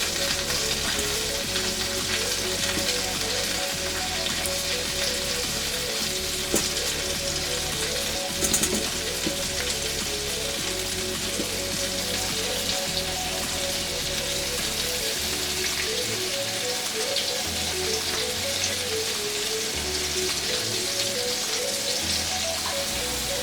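Battered shrimp deep-frying in hot vegetable oil: a steady, dense sizzle. Background music with a bass line and a simple melody plays along with it.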